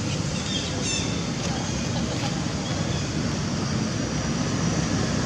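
Steady rushing outdoor background noise, like wind on the microphone or distant traffic, with a few faint high squeaks about a second in.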